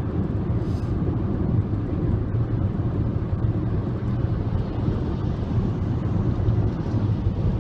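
Steady low rumble of car road and engine noise, heard from inside the cabin of a moving car.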